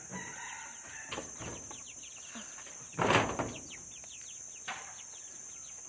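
Claw hammer prying a nail out of a wooden post: a couple of light knocks, then a loud grating creak about three seconds in as the nail is levered out. Birds chirp rapidly in the background.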